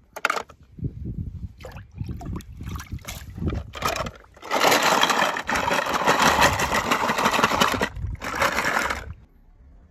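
Die-cast metal toy cars knocking against each other and a plastic tub: a few separate clicks at first, then about four seconds of continuous rattling with a short break, stopping shortly before the end.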